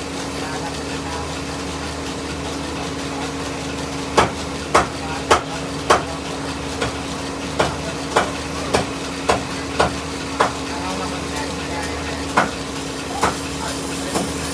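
Steady hum of a motor-driven wood lathe, with a dry rubbing, sizzling noise as colour is pressed onto the spinning wooden cot leg. About four seconds in, a run of sharp knocks begins at roughly two a second, and a few more knocks come further apart near the end.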